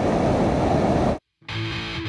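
Electric guitar music: a dense, distorted guitar sound cuts out briefly about a second in, then comes back as a held chord.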